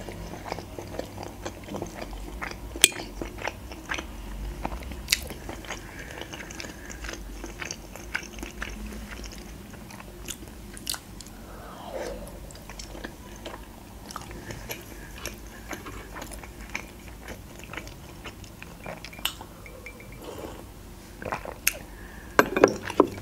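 Close-miked chewing of gyurza dumplings, with wet mouth clicks and smacks scattered throughout.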